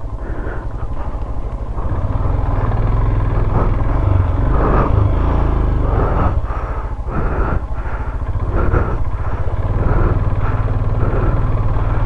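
Motorcycle engine running under load on a rough trail, its sound swelling and dipping every second or so, louder from about two seconds in, while the rear tyre is skidding.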